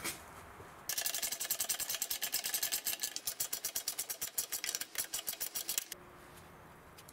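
Ratcheting wrench clicking rapidly and evenly for about five seconds, starting about a second in, as it backs off a 10 mm nut.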